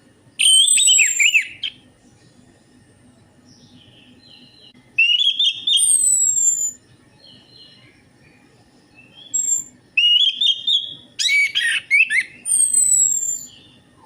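Orange-headed thrush singing: loud, varied whistled song phrases with high, falling notes, delivered in about four bursts separated by pauses of a few seconds.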